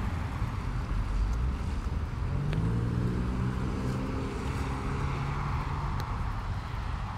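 A motor vehicle passes on a wet road: its engine hum rises briefly about two and a half seconds in, holds, and fades out a few seconds later. Underneath is a steady low wind rumble on the microphone and the hiss of the wet street.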